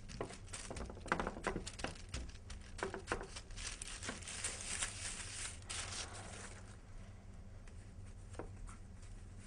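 Hands pressing and smoothing a sheet of hot almond paste on baking paper, the paper crinkling and rustling under them. The rustling is thickest in the middle, then thins to light scattered taps.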